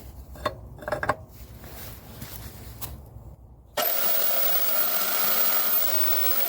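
A few light metal clinks from handling the steel tubing, then a handheld grinder runs for about three seconds with a steady whine, starting a little past halfway and cutting off abruptly, as it enlarges a slot in the steel square tubing.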